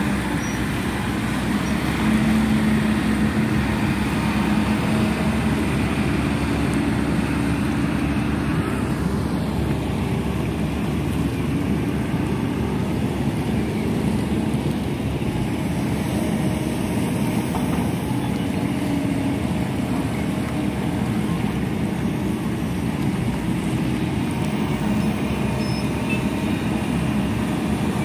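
Boat motor running steadily under a rushing hiss of water and wind; the hiss eases a little about nine seconds in.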